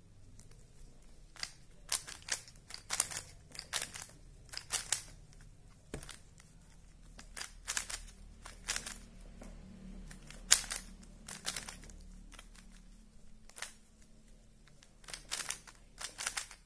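Rubik's cube layers being twisted by hand: short plastic clicking and scraping turns in irregular quick clusters.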